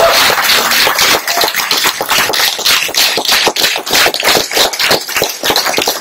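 Audience applauding: dense, irregular clapping.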